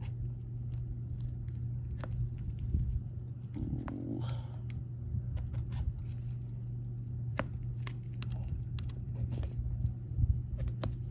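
Scattered small clicks and scrapes of a rubber steering-rack bellows being worked by hand and with an ice pick over the rack housing, with a brief denser rubbing sound about four seconds in, over a steady low hum.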